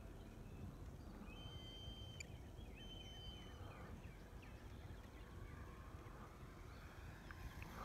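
Wind rumbling on the phone's microphone, with faint high chirps and whistles between about one and three and a half seconds in.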